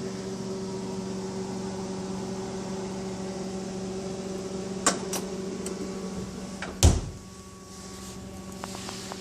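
Side-by-side refrigerator humming steadily with its door open, with two light clicks about five seconds in; then the door is shut with a single loud thump about seven seconds in, and the hum is quieter afterwards.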